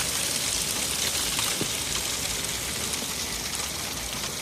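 Steak, kielbasa, onions and peppers sizzling steadily in a pan on low heat, a continuous crackling hiss.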